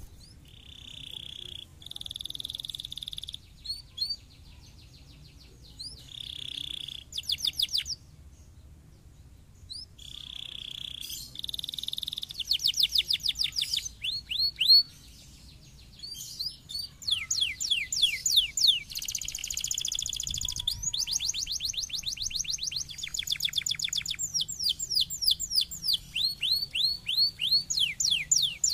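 Canary singing: a song of rapid trills, fast repeated down-sweeping notes and held whistled tones, in bursts with a short pause about eight seconds in, then becoming dense and continuous.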